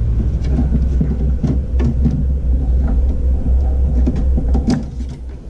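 Plastic front cover of a NAS enclosure being handled and pulled off, with scattered light clicks and knocks, a cluster of them near the end, over a steady low rumble.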